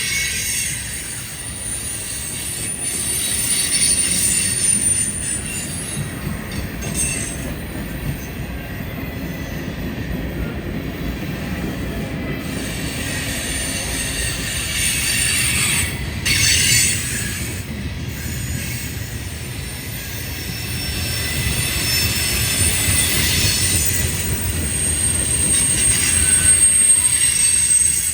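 Freight train cars rolling past on the rails: a steady rumble, with high-pitched wheel squeal coming and going over it, strongest near the start and near the end.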